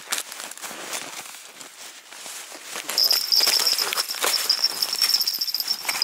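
Crunching and scraping on snow and ice, with many short crackles. About halfway through, a steady high-pitched whine joins in.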